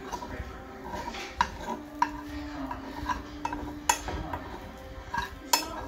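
A spoon stirring and scraping scrambled eggs around a frying pan, with a few sharp clicks as it knocks against the pan.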